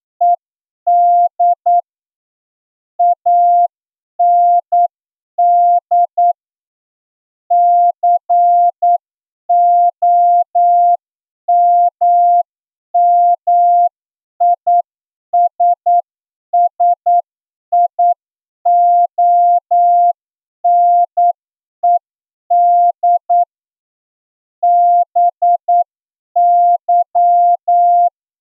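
Morse code sent as a single steady tone of about 700 Hz, keyed on and off in dots and dashes with short gaps between characters and longer gaps between words. It is a plain-language practice passage for an amateur radio Morse receiving test, sent at about 8 words per minute.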